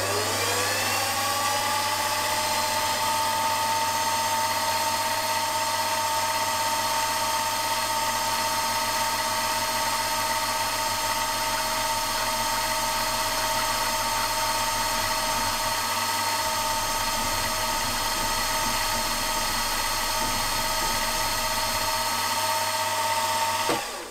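Milling machine spindle spinning up to speed, then running with a steady high whine while a 4 mm two-flute end mill cuts into a small aluminium drum. The whine drops in pitch and dies away as the spindle stops just before the end.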